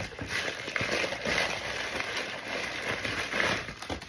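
Packaging rustling and crinkling as a parcel of fragrance samples is unpacked by hand, a continuous run of small crackles.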